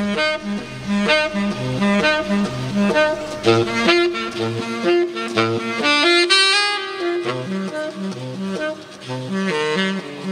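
Tenor saxophone playing a jazz melody over a repeating low bass figure built up on a Boss RC30 loop station.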